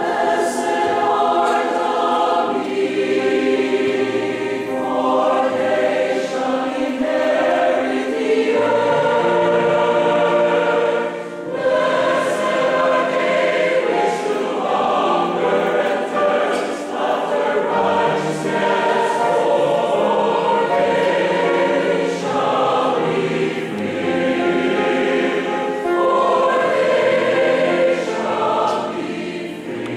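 Large mixed choir of men's and women's voices singing sustained chords in long phrases, with a brief break between phrases about eleven seconds in.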